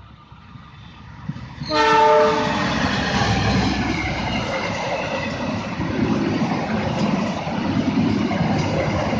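Train horn sounding once, briefly, about two seconds in, followed at once by a train passing close by: a loud, steady rush of wheel and rail noise.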